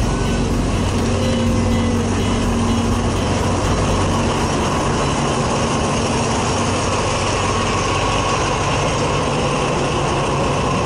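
State Railway of Thailand diesel locomotive passing at close range at slow speed, its engine running, with the train rumbling steadily along the track. The engine's hum fades about three seconds in as the locomotive goes by.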